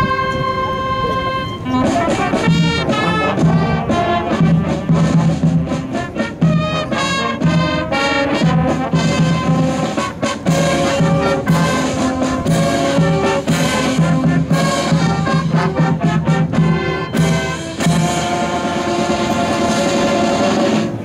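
Brass band music: a long held brass chord, then from about two seconds in a brisk tune with a steady beat and drum hits.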